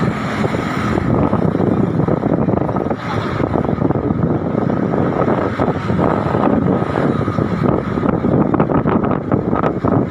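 Strong wind buffeting the microphone: a loud, rough, constantly fluttering rumble.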